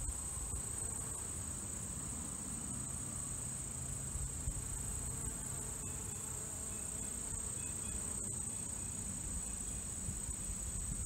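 Insect chorus: a steady high-pitched trill that holds without a break.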